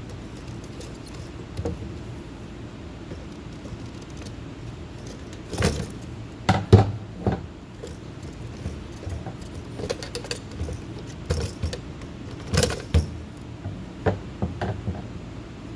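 Hand tools and metal and plastic parts being handled: irregular clicks and knocks, loudest in two clusters about six and twelve seconds in, over a steady low hum.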